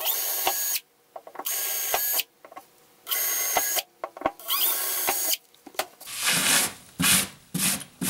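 Cordless drill running in four short bursts of under a second each, boring bolt holes through a wooden workbench top. Near the end, a gloved hand brushes the wood shavings off the bench in quick repeated strokes, about two a second.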